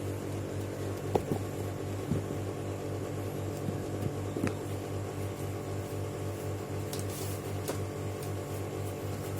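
Steady low hum with a faint even pulsing, with a few light clicks of handling about one, two and four and a half seconds in.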